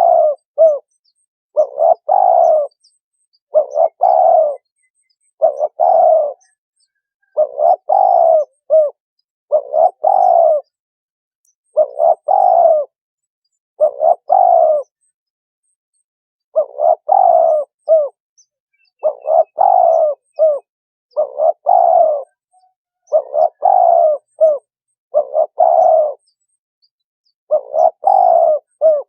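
Spotted dove cooing: a phrase of several low coos repeated about once every two seconds, with a couple of slightly longer pauses between phrases.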